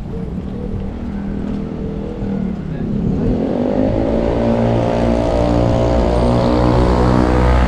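A motor vehicle pulling away in street noise: its motor note rises in pitch about three seconds in, then holds steady and grows louder.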